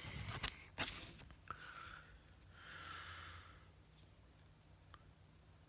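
Faint knocks and rubs of a phone being handled close to its microphone, then a soft breath about three seconds in.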